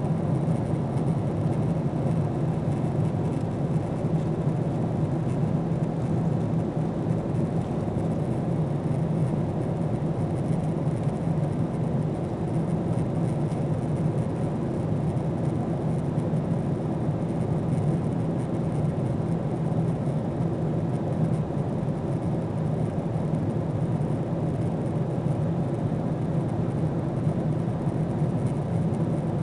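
Steady cabin drone of a Boeing 777 airliner in flight, heard inside the cabin by the window over the wing: engine and airflow noise as an even, unchanging rumble that is strongest in its deep range.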